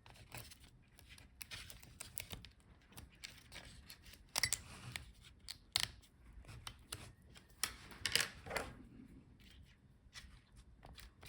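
Faint, scattered small clicks and scratchy scrapes of fingers and a tool working inside a laptop as internal cables and connectors are unplugged and pulled free, with a few sharper clicks about halfway through and near 8 seconds.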